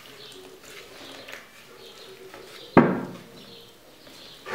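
A dog barks once, loudly, about three seconds in, over faint whisking of batter in a plastic bowl.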